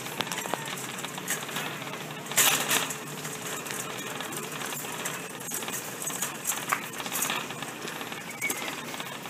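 Metal shopping cart rattling and clicking as it is pushed across a concrete floor, amid shop noise, with a short louder burst of noise about two and a half seconds in.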